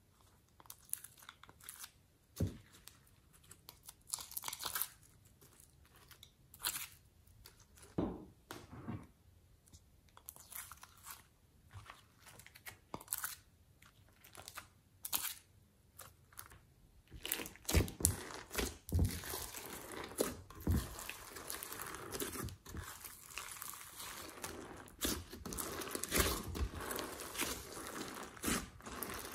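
Hands working sticky slime: scattered soft taps and brief peeling sounds at first, then from about halfway through a continuous wet squishing and crackling as slime loaded with sequins, glitter and soft clay is squeezed and kneaded.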